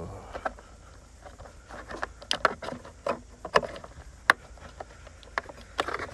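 Irregular sharp plastic clicks and knocks as wiring connectors are pushed back onto a replacement fuse box, the loudest about four seconds in.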